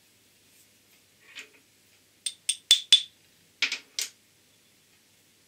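Small steel parts clinking: the shop-made threading tool holder bar and its tool bit being handled, giving a quick run of sharp metallic clicks with a light ring, in two clusters.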